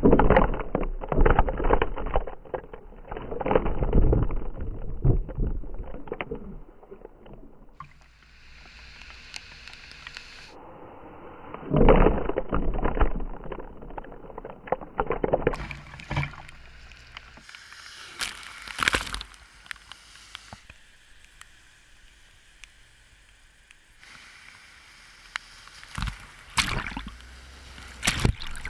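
Floodwater thrown up by double-decker buses driving through a flooded road, sloshing and splashing heavily over a camera at kerb level. It comes in several loud surges: in the first few seconds, about 12 s in, about 19 s in and near the end, with quieter sloshing between.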